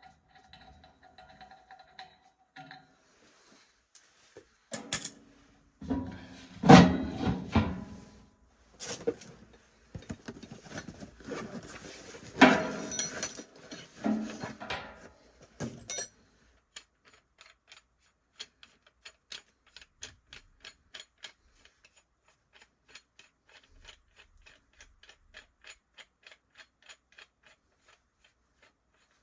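Metal parts and tools clattering and knocking, then a ratchet clicking evenly, several clicks a second, for about ten seconds.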